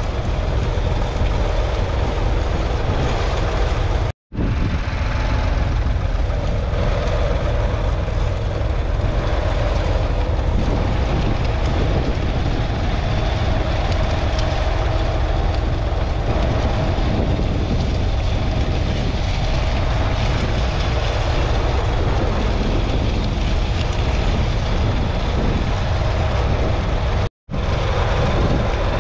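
David Brown 770 Selectamatic's 2.4-litre three-cylinder diesel engine running steadily under load, pulling a two-furrow mounted plough. The sound cuts out completely for a split second twice, about four seconds in and near the end.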